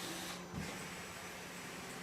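CNC turning center at work: a steady hiss with a low hum under it, the hiss dipping briefly about half a second in with a faint knock.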